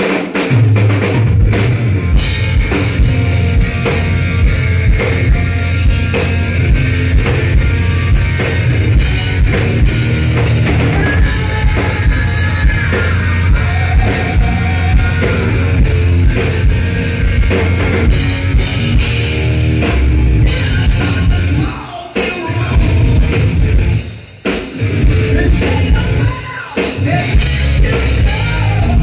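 Live hard rock band playing loud: drum kit, distorted electric guitar and bass, with a man singing. The band comes in sharply right at the start, and the music cuts out briefly three times in the last third.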